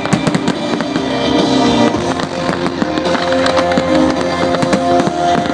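Fireworks popping and crackling in rapid, dense succession, layered over loud music from the display's sound system that holds long sustained notes.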